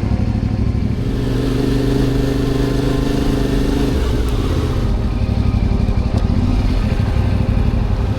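Motorcycle engine running while riding, its note holding steady for a few seconds, then shifting about halfway through.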